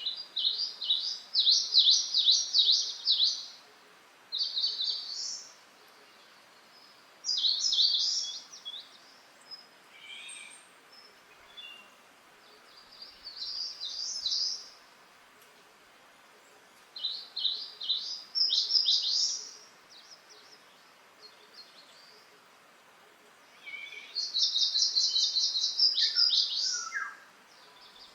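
A wild bird singing six short phrases of fast, high repeated notes, each lasting one to three seconds with gaps of a few seconds between, over a faint steady background hiss. A fainter, lower call comes near the end.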